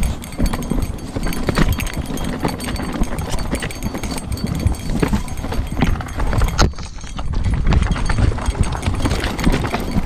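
Mountain bike descending a rocky trail: tyres crunching over loose stones, with a dense, irregular run of clicks and knocks from the bike over a low rumble, easing briefly about seven seconds in.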